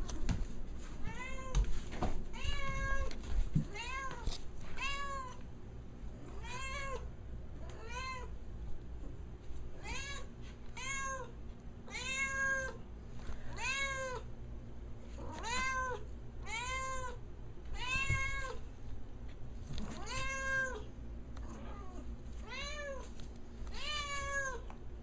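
Calico cat meowing over and over, about twenty short calls each rising then falling in pitch, roughly one a second: demand meows to be let outside at the door. A few thumps in the first few seconds.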